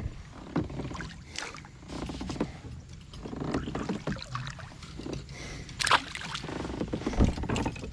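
Bluegill dropped back into the water splashing once beside a kayak, about six seconds in; before it, water lapping and small knocks against the kayak hull.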